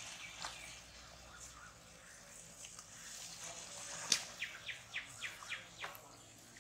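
Donut dough frying in hot oil in an iron kadai, a faint steady sizzle. About four seconds in there is a sharp click, then a quick run of about seven short high chirps, roughly four a second.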